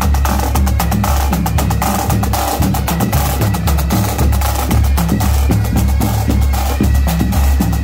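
Marching drum corps playing a cadence on Pearl marching snare drums and tenor drums: a dense, rapid run of stick strikes that keeps going throughout.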